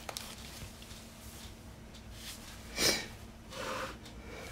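Quiet handling of a spiral-bound planner on a wooden desk, with one brief swish about three seconds in as it is slid and repositioned.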